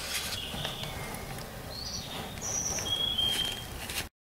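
Socket wrench on a long extension working the oil filter housing cap of a 2004 Mini Cooper: scattered light clicks and knocks of metal tools, with several short high chirps over the second half. The sound cuts off suddenly near the end.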